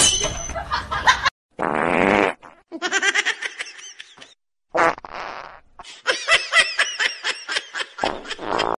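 Two fart sounds, about three seconds apart, each followed by a person laughing in quick repeated bursts; the second run of laughter, near the end, is the longest.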